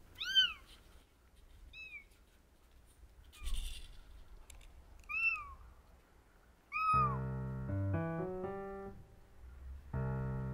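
A kitten meowing about five times: short, high-pitched mews that rise and fall, a second or two apart. About seven seconds in, light background music with stepped piano-like notes starts.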